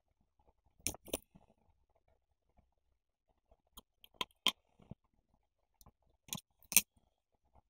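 Sheets and cut pieces of paper being handled and pressed down on a table: a few short, dry paper crackles and rustles, the loudest near the end.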